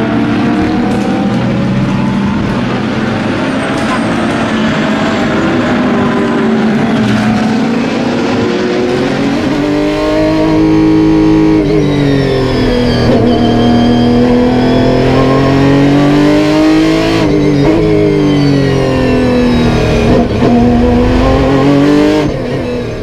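Racing car engine running hard, its pitch repeatedly rising and falling as it revs up and backs off, with a deep drop and climb about ten seconds in.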